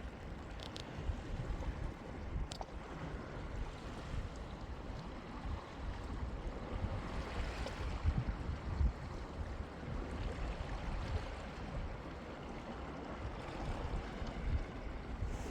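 Wind buffeting the microphone: a gusty low rumble over a steady hiss.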